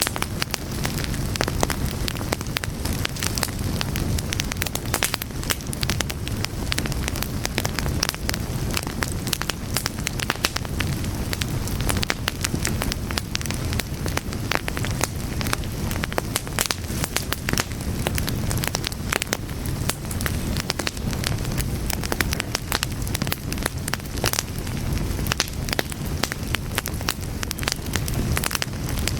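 Fire burning steadily, with a low rumble under frequent irregular crackles and pops.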